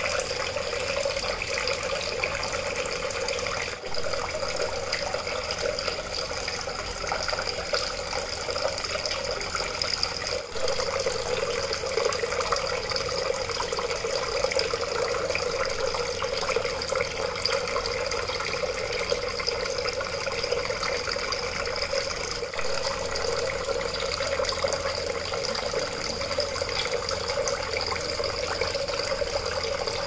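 Water from a small homemade cement fountain pouring in thin streams from three PVC pipe spouts and splashing steadily into the water-filled basin below.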